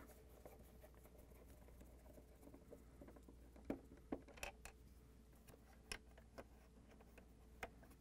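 Near silence, broken by a few faint, scattered clicks and light scrapes of a quarter-inch nut driver turning screws out of a refrigerator's plastic dispenser housing.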